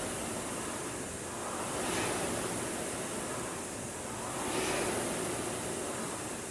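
Concept2 indoor rower's air flywheel whooshing, swelling with each drive about every 2.7 seconds, a steady rate of about 22 strokes a minute.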